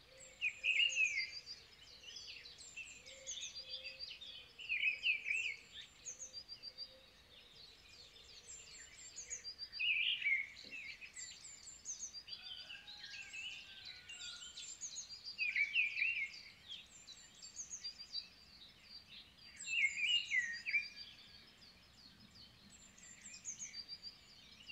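Birdsong from several birds chirping, with one louder song phrase repeating about every five seconds.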